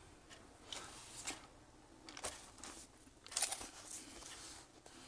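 Faint rustling and scraping of paper pages being handled, as a few short, separate strokes with the strongest about three and a half seconds in.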